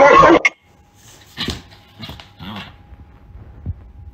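Rottweiler barking: one loud, harsh bark right at the start, then three shorter, softer calls between about one and a half and two and a half seconds in.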